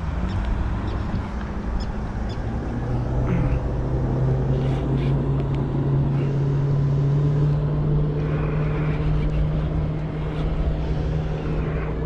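A boat motor running with a steady low hum, its pitch stepping up about three seconds in, over wind and water noise.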